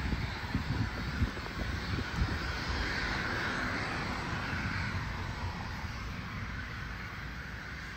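Twin Pratt & Whitney Canada PW530A turbofans of a Cessna 550 Citation Bravo running at taxi power, a steady jet rush that swells about three seconds in and then eases slightly. Wind buffets the microphone with low thuds near the start.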